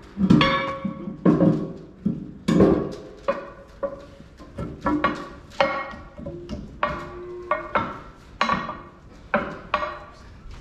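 Cast-iron tractor suitcase weights clanking as they are handled and hung one by one on a John Deere 4055's front weight bracket. The clanks are sharp and irregular, each followed by a short metallic ring.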